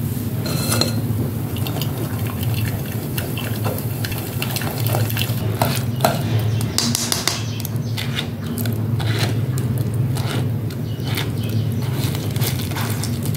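A silicone spatula scrapes and presses thick falsa (grewia) pulp through a stainless steel mesh strainer sitting in a glass bowl. There are repeated scrapes and clinks of the metal strainer against the glass, over a steady low hum.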